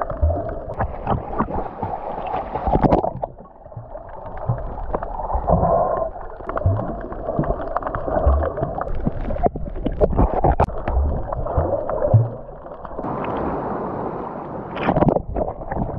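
Muffled underwater water noise while snorkelling: gurgling, with many small knocks and low thumps from the swimmer's movements. About thirteen seconds in the sound opens up and brightens as it comes to the surface, with the splashing of a snorkeler swimming.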